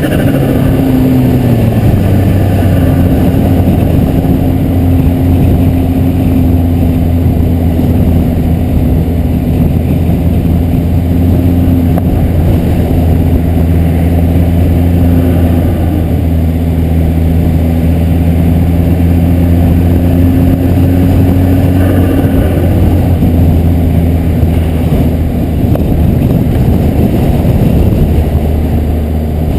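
Volvo S60R's turbocharged five-cylinder engine running at a steady cruise, a constant drone that holds nearly one pitch throughout.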